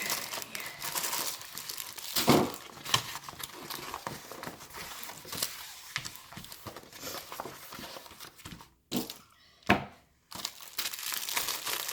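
Packaging crinkling and rustling as it is handled and unwrapped by hand, with sharp crackles and a couple of louder snaps. It stops briefly about nine seconds in, then resumes.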